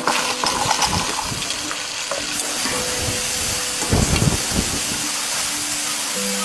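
Raw cut potatoes tipped into hot oil in a wok, breaking at once into a loud, steady deep-frying sizzle. About four seconds in there is a brief louder, lower stretch as a wire skimmer works through the bubbling fries.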